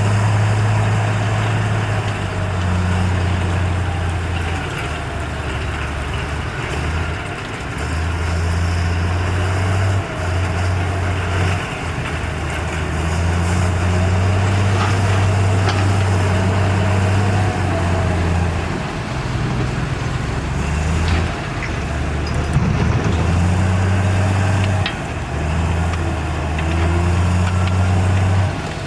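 Heavy diesel earthmoving machinery running at a worksite. The deep engine note steps up and down again and again as the machine works under changing load.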